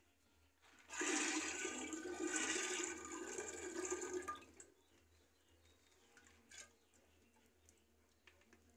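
Washed maize kernels poured from a plastic colander into a pot of water, a splashing rush that starts about a second in and lasts about three and a half seconds.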